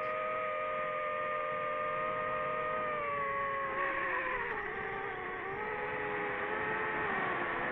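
Drone motors and propellers whining with several steady pitches over a rush of air, the pitch dropping and wavering about halfway through as the throttle changes.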